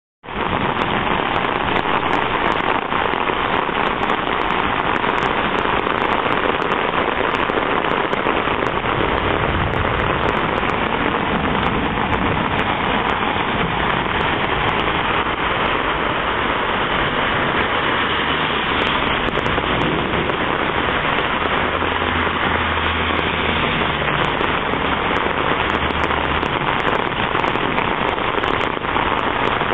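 Heavy rain mixed with hail pelting the street and parked cars: a dense, steady patter full of sharp ticks from ice pieces striking.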